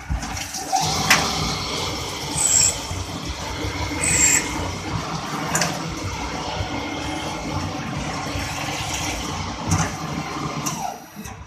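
CNC drilling, milling and tapping machine working on faucet bodies: steady machining noise with a few short high squeals and a couple of sharp clicks, cutting off abruptly near the end.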